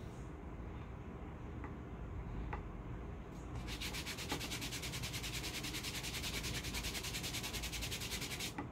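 A hand rubbing briskly over a paper hair-removal strip on the leg, smoothing it down onto the cold-waxed skin: a fast, even, scratchy back-and-forth rubbing that starts about three and a half seconds in, after a few faint taps.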